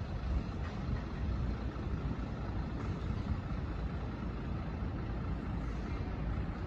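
Steady engine and road noise heard from inside a moving road vehicle, strongest in the low end, with no distinct events.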